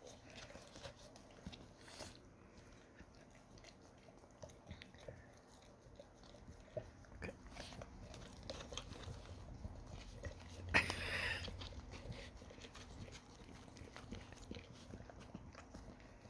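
Dogs licking and chewing sour cream, with many small wet mouth clicks and smacks. A brief louder noise comes about eleven seconds in.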